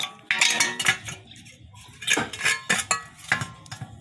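Metal tools or parts clinking and clanking against each other: a run of irregular sharp, ringing knocks, the loudest in the first second.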